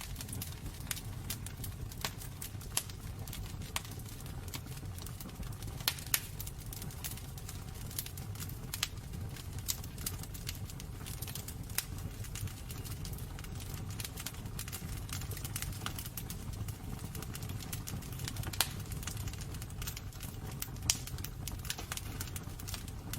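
Wood fire burning in a fireplace, crackling steadily with a low rumble of flame and irregular sharp pops, a few louder snaps among them.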